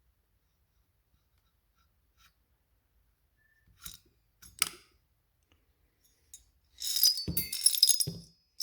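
Small metal engine parts and tools being handled on a workbench. After a few quiet seconds come some light clicks, then a quick cluster of metallic clinks and rattles with a couple of dull knocks.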